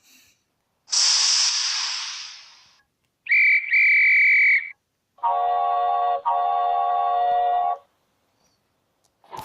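Recorded sound effects from a little red model locomotive, played one after another. First a hiss of steam that fades away, then a short high whistle in two toots, then a lower chime whistle sounding a chord in two blasts. Each sound stops abruptly.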